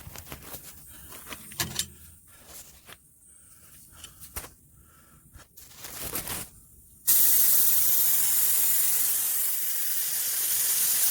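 Scattered knocks and rustling, then about seven seconds in a loud, steady hiss of compressed air from an air compressor's hose starts suddenly.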